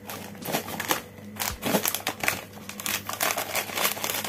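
Plastic packet of Mr. Chish cheese-ball snacks crinkling as it is picked up and handled, then torn open near the end.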